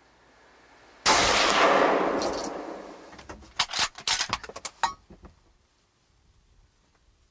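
A single shot from a scoped bolt-action hunting rifle about a second in, loud and sudden, its report dying away over about two seconds. A quick run of sharp clicks and knocks follows between about three and a half and five seconds in.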